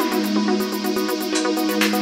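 Electronic background music: a held low drone under sustained synth notes, with a fast steady high pulse and short swishing sweeps every second or so.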